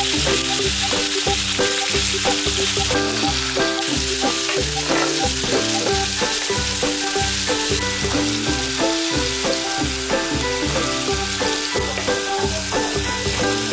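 Sliced lamb kidneys sizzling in hot oil in a non-stick frying pan, starting as they go into the pan and continuing as they are stir-fried with a wooden spatula. Background music with a steady beat plays along.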